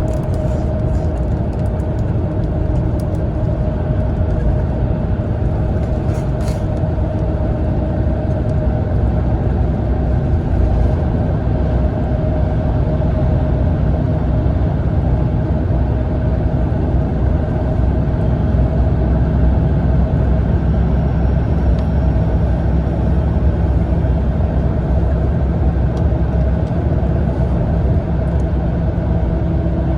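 Cabin sound of a Mitsubishi Fuso Aero Ace coach on the road: a steady low rumble of engine and tyres with a constant hum, and a few faint clicks about six seconds in.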